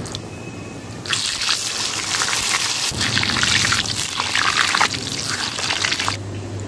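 Hollowed-out potatoes deep-frying in hot oil: a loud, crackling sizzle swells up about a second in and cuts off abruptly near the end.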